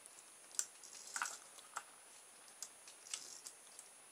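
Faint, irregular light clicks and taps of a small plastic solar toy car being handled in the fingers and touched down on a wooden table, about seven in all.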